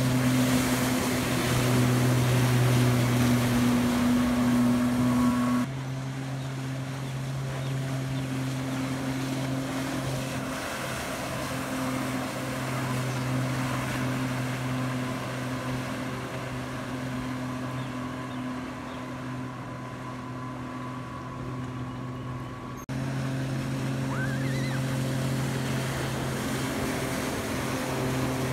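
Jet ski engine running at a steady pitch as it tows a tube across a lake, with the hiss of spray and wake. The level drops suddenly about six seconds in and comes back up abruptly near the end.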